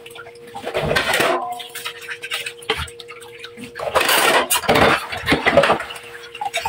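Dishes being washed by hand at a kitchen sink: tap water splashing into a metal basin and dishes knocking, in a short spell about a second in and a longer one from about four seconds in. A steady humming tone runs underneath.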